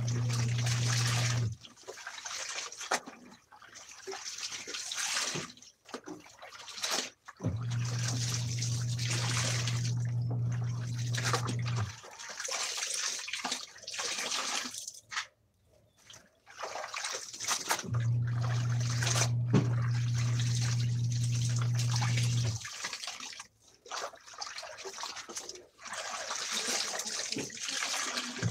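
Water splashing and dripping into a plastic basin as wet clothes are squeezed and wrung out by hand. A washing machine's motor hums in stretches of about five seconds, stopping and starting again.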